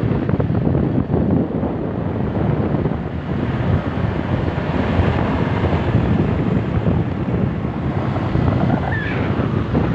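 Wind rushing over the microphone of a moving motorcycle, steady and loud, mixed with the motorcycle's running and road noise.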